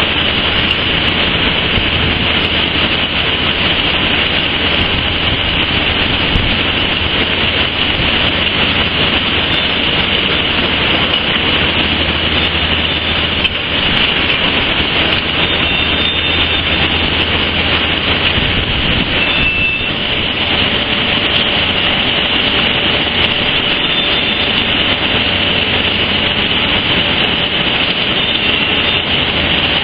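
A steady, loud rushing roar with no pauses, holding the same pitch throughout.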